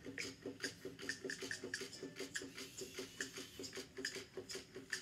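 Small battery-powered toy robots running on a tabletop: an even, mechanical clicking of motor and gears at about four or five clicks a second, each click with a short low buzz.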